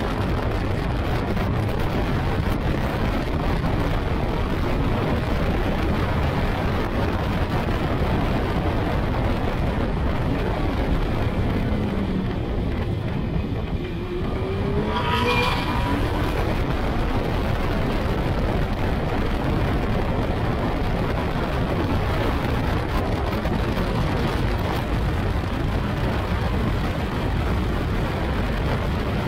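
Yamaha R1 inline-four motorbike engine in a Phoenix R1 kit car running hard on track, heard from the open cockpit under heavy wind noise. About halfway through it drops off briefly as the car slows for a corner, then the revs rise again as it accelerates out.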